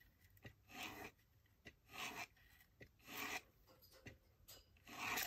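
Repeated rasping strokes across paper, one about every second, each lasting a fraction of a second.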